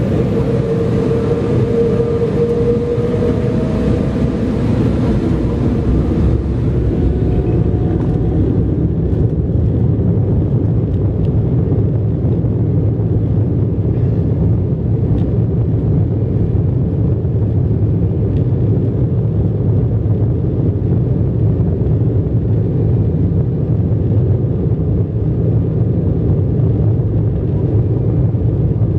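Jet airliner cabin noise while the aircraft rolls along the runway: a loud, steady low rumble of engines and wheels, with a faint whine that fades out in the first few seconds.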